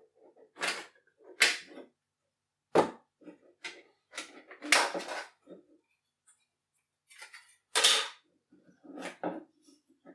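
A series of sharp plastic clacks and knocks, irregularly spaced a second or two apart, with softer handling noises between them: a small plastic night-lamp being handled and its housing opened up.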